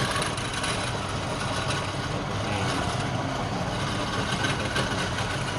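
Woodworking machine's motor running steadily, a constant mechanical noise with a low hum.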